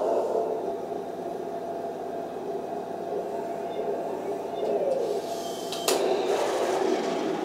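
Henglong Tiger I RC tank's sound unit playing its simulated engine idle, a steady hum, while the tank sits still and smoking. A sharp click comes about six seconds in.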